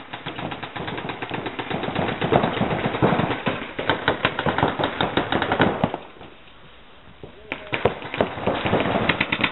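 Paintball markers firing reusable rubber reballs in rapid, overlapping strings of shots. The firing dies down about six seconds in, then picks up again near the end.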